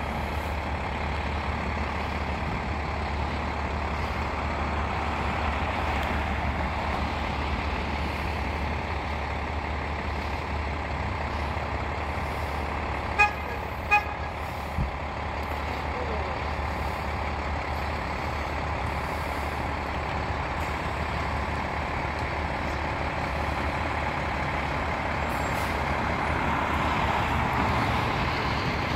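Fire engine's diesel running steadily, with two short horn beeps about halfway through; the engine grows louder near the end as the truck pulls out.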